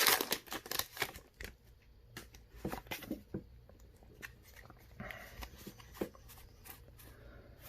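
Pokémon trading cards and a booster pack being handled: faint scattered clicks and a short rustle about five seconds in.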